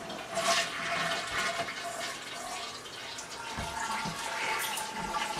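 Toilet flushing: water rushing, with a faint steady whistle running through it.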